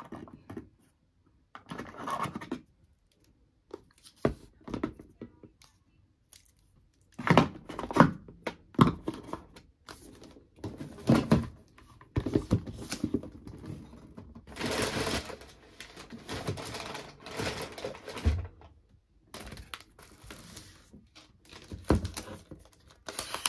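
Unpacking a MacBook box by hand: cardboard and paper packaging rustling, scraping and tearing in irregular bursts, with a few sharp knocks as parts are lifted out and set down.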